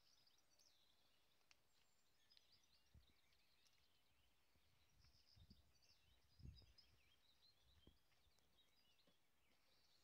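Faint birdsong: small birds twittering and chirping steadily in the distance, with a few soft low thumps about halfway through.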